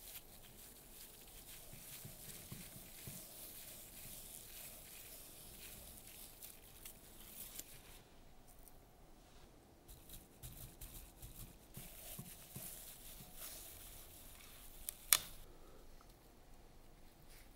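A knife cuts through gold-leaf-covered roast chicken with a fine, crinkly crackling. Then come softer handling noises as chicken pieces are pressed into a flatbread, and one sharp click about fifteen seconds in.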